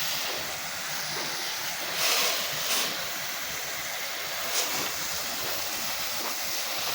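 Pressure washer wand spraying a downstream-injected sodium hypochlorite mix as a steady hiss, with brief louder swells about two seconds in, again just after, and about four and a half seconds in.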